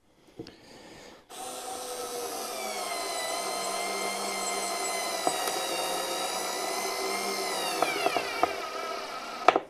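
Parkside PAS D5 4 V cordless screwdriver, with its torque-selector attachment set to maximum, driving a screw. The motor and gearbox whine steadily, then drop in pitch over the last two seconds as the screw tightens. The torque selector clicks, and the motor cuts out suddenly as the tool's overload protection trips.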